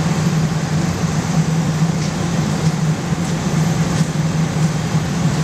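Fire truck's diesel engine running steadily with a constant low hum.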